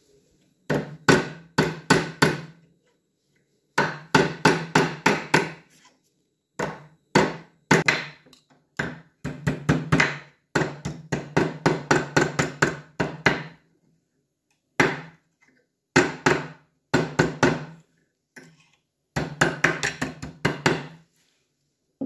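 Steel hammer striking a rusty iron rod on the anvil of a bench vise, straightening and reshaping it. The blows come in quick runs of about four to five a second, with short pauses between runs.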